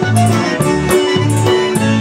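Live polka music: a Star Chemnitzer concertina plays reedy chords and melody over an electric bass, which alternates between notes in an oom-pah pattern. Sharp percussive strokes mark a steady beat.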